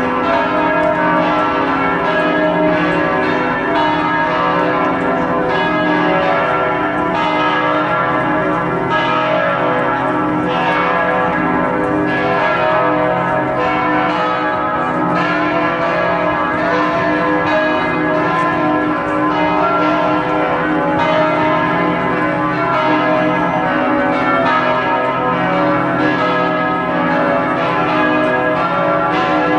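Church bells of Notre-Dame Basilica pealing together. The bells are struck in quick succession about once a second, and their tones overlap and ring on.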